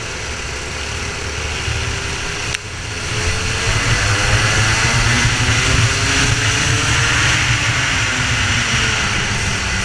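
Racing kart engine under way. Its note drops briefly about two and a half seconds in, then its pitch climbs steadily for several seconds as the kart accelerates, and levels off near the end.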